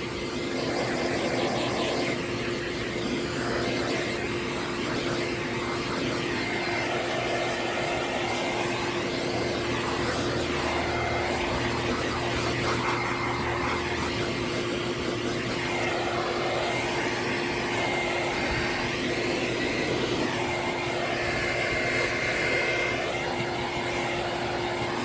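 High-velocity dog grooming dryer running steadily, blasting air through a dusty air-purifier pre-filter. It makes a loud rush of air over a constant motor hum and faint whine, and the rush swells and eases slightly as the nozzle moves over the filter.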